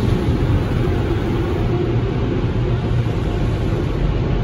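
Automatic car wash's overhead air-dryer blowers running, heard from inside the car as a loud, steady rushing noise.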